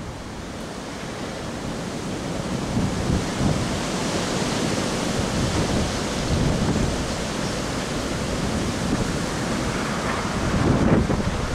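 Wind buffeting the microphone over the low, steadily rising sound of a 15-inch-gauge steam locomotive approaching along the line; no horn sounds.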